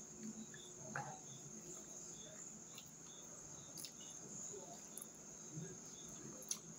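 A cricket's steady high trill with short chirps repeating about twice a second, and faint small clicks of chewing and eating by hand.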